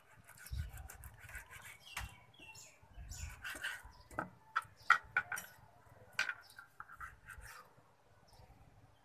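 Kitchen knife slicing raw chicken breast on a plastic cutting board, with scattered faint clicks of the blade meeting the board. Short bird calls sound in the background, the loudest about five seconds in.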